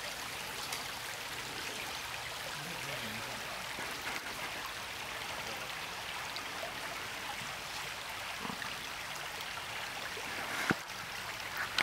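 A creek running steadily, an even rushing of water, with a single sharp click near the end.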